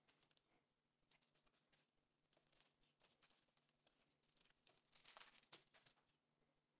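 Near silence with faint rustling and scratching from kitchen string being drawn around a ball of brioche dough on a perforated baking mat. The rustling is loudest about five seconds in.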